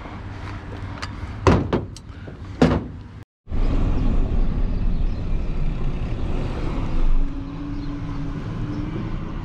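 A few sharp knocks and thumps, then, after a brief break, a truck engine idling steadily with a low rumble, left running while the driver is out.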